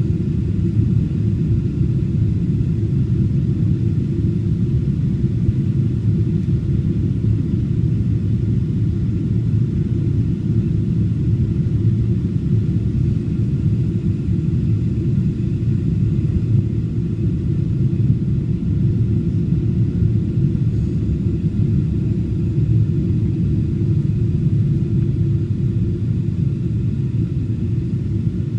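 Jet airliner cabin noise in flight on the approach to landing: a steady low rumble of engines and airflow heard from inside the cabin, with a faint steady whine above it.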